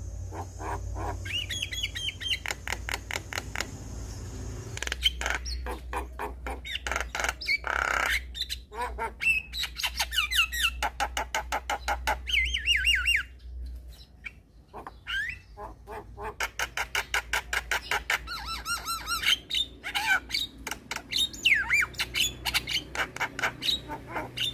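Javan myna (jalak kebo) calling: strings of rapid harsh rattling clicks and squawks, mixed with slurred whistled notes that glide up and down.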